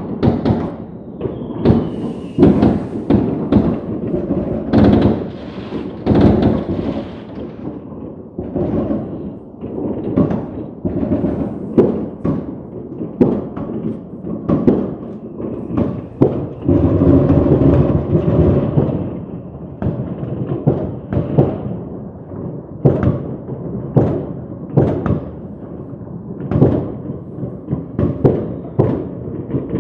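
Fireworks going off: a long run of sharp bangs and crackles in irregular succession, with a dense barrage about seventeen seconds in.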